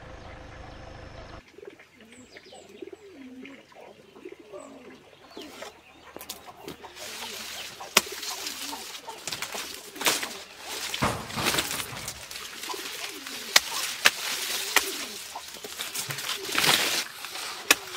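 A dove coos repeatedly in the background while sugarcane leaves rustle as a man pulls through the stalks. The rustling grows from about six seconds in, with several sharp cracks from the cane stalks.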